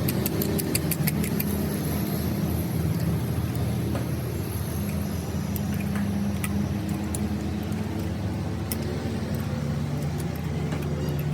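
Diesel engine running steadily at idle. A quick run of sharp metallic ticks comes over it at the start, with a few single clicks later.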